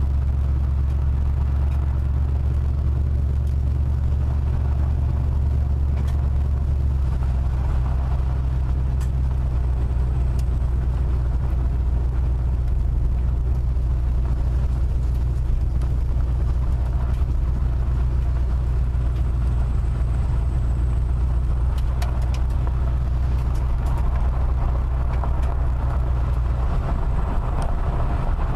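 Car driving on a gravel road, heard from inside the cabin: a steady low drone of engine and tyres with the rumble of gravel underneath and a few faint ticks.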